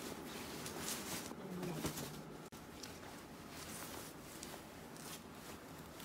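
Cotton pillowcases rustling and swishing as pillows are pushed and shaken into them, in a run of uneven swishes.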